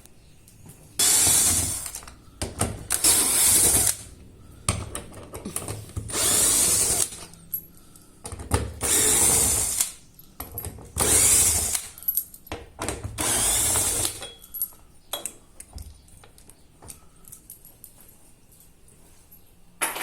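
Cordless power drill or screwdriver running in short bursts of about a second each, six times, backing out the screws of a washing machine part. Light clicks and clatter come between the bursts as screws and the tool are handled, and this stops after about fourteen seconds.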